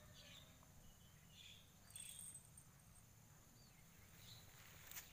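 Near silence: faint outdoor ambience with a few soft, short bird-like chirps over a low steady hum.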